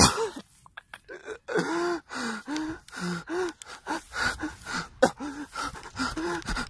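A person gasping and panting hard: a sharp, loud gasp at the start, then a rapid string of short, pitched breaths, about two or three a second, each rising and falling in pitch.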